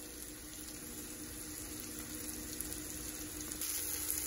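Breaded flounder and pompano fillets sizzling in butter in a frying pan: a steady hiss that grows a little brighter and louder near the end.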